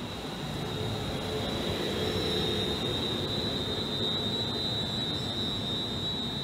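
London Northwestern Railway electric multiple unit moving slowly past along the platform: a steady rumble with a thin, high-pitched whine held throughout.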